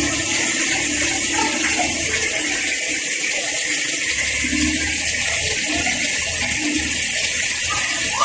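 Toyota Corolla's four-cylinder petrol engine running at idle after an engine treatment, heard as a steady hiss over a low rumble that fades briefly about three seconds in.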